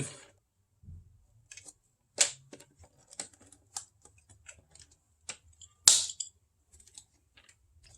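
Scattered light clicks and taps of engine parts being handled and fitted by hand, with two louder clacks about two seconds in and near six seconds.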